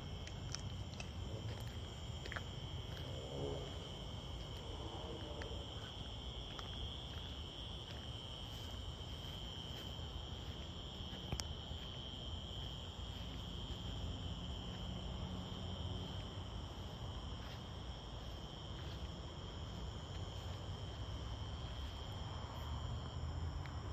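Steady chorus of night insects: a continuous high, shrill trilling drone with no breaks.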